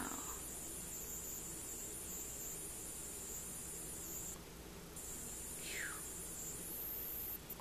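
Steady high-pitched trill or ringing, breaking off briefly about four and a half seconds in, with a short falling squeak about six seconds in.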